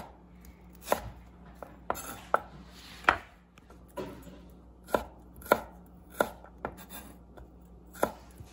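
Chef's knife slicing ginger, onion and garlic on a wooden cutting board: single, unhurried knife strikes knocking on the board, about one a second.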